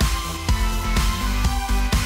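Music with heavy bass and a steady beat of about two beats a second.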